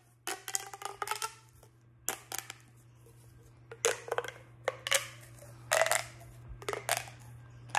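Miniature plastic pop tube being stretched and squeezed, its ribbed sections popping in quick clusters of clicks, several times over, with a steady low hum underneath.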